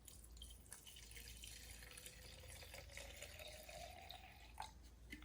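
Two-stroke fuel mix being poured into the Homelite HT17 hedge trimmer's fuel tank, a faint trickle with a tone that slowly rises in pitch as the tank fills.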